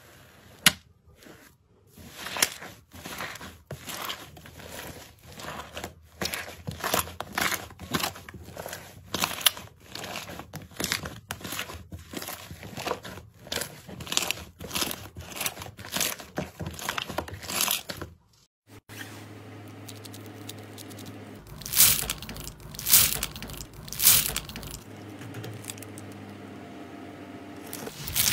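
Hands pressing, squeezing and pulling thick slime in a plastic tub: a quick, uneven run of sticky pops, crackles and tearing sounds. About two-thirds through it cuts out for a moment. It gives way to a quieter stretch over a steady low hum, with a few louder pops.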